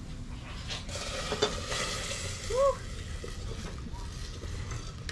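Hot oil with fried garlic and cumin seeds sizzling as the ladle is plunged into a pot of boiled dal to temper it (chunkay), with a metal clink about a second and a half in. The sizzle is loudest at first and goes on more quietly once the pot lid is on. There is a brief high squeak just past the middle.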